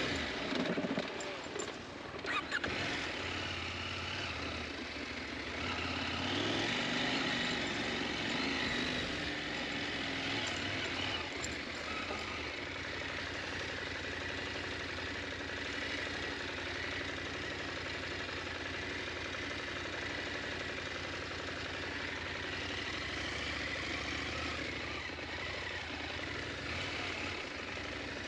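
KTM 890 Adventure motorcycle's parallel-twin engine running steadily, under a continuous rushing noise, with a few sharp clicks in the first couple of seconds.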